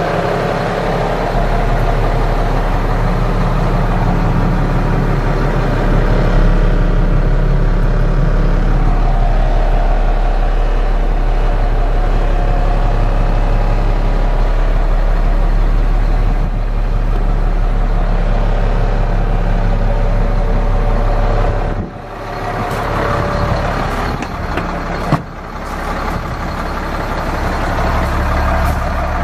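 The Freightliner M2 106's Caterpillar C7 diesel engine idling steadily, heard first inside the cab and then from beside the truck. About three-quarters through, the sound dips briefly and a single sharp knock follows.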